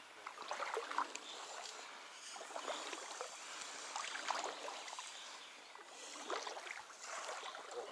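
Shallow river water sloshing and splashing irregularly in small, uneven bursts.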